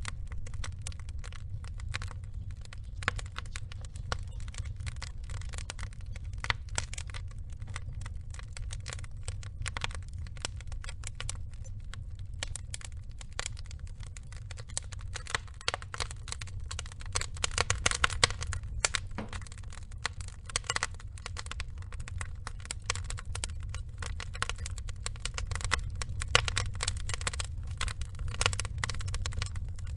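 Burning logs crackling: irregular sharp crackles over a steady low rumble, thickest a little past halfway and again near the end.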